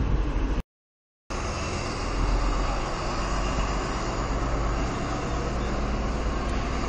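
Steady rumble of a diesel train running at the station, heaviest in the low end. The sound cuts out completely for under a second shortly after the start, then carries on unchanged.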